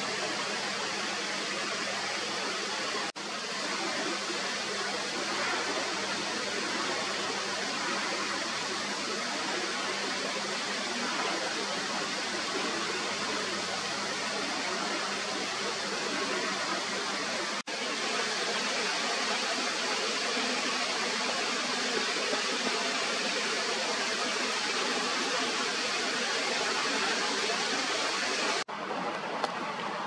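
Steady rushing of flowing river water, with two momentary breaks a few seconds in and about halfway through.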